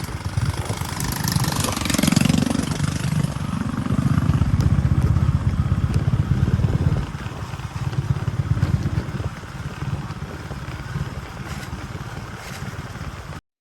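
An engine running, rising and falling in loudness, cut off abruptly near the end.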